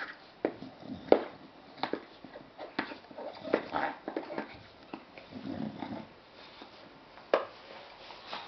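English bulldog lying on its side, making a string of short, irregular dog sounds and breaths, with a sharp louder one about seven seconds in.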